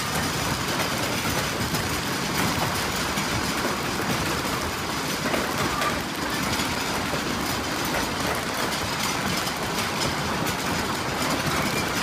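Violent hailstorm in strong wind: a steady roar of wind and falling hail, with many small sharp hits of hailstones striking the ground and surfaces.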